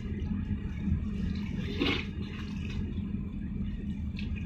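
Low steady rumble and hum of a ship's engine over sloshing harbour water, with a brief hissing swell about two seconds in.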